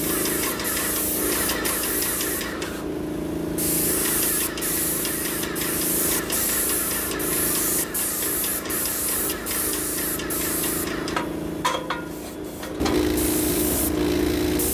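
Paint spray gun hissing steadily as red paint goes onto the caboose's steel side. The hiss breaks off briefly twice where the trigger is let go. A steady machine hum runs underneath.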